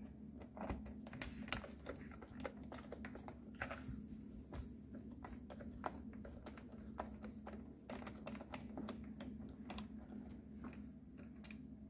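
Faint, irregular small clicks and taps of a Torx driver and plastic switch parts being handled while the screws holding a steering wheel's audio-control switches are undone, over a faint steady hum.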